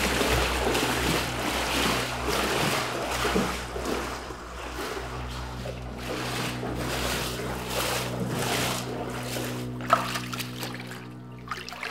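Water splashing and sloshing, as from wading through shallow floodwater in a shelter, for the first few seconds; a steady low musical drone then comes in about halfway through and carries on, with a sharp click near the end.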